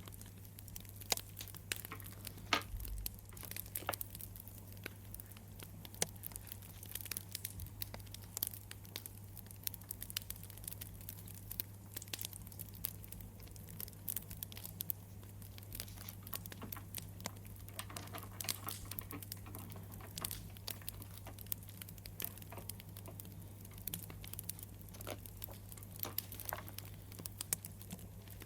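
Wood fire crackling: a steady stream of irregular small pops and snaps, over a steady low hum.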